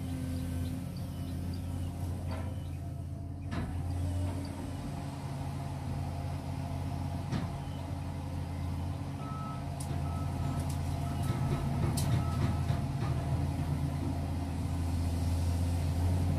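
Caterpillar 345GC hydraulic excavator's diesel engine running steadily as the machine swings and digs, with a few sharp knocks. About two-thirds of the way in, an alarm gives a series of about six short high beeps.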